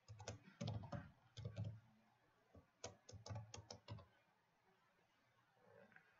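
Faint typing on a computer keyboard: two short runs of keystrokes, the second ending about four seconds in.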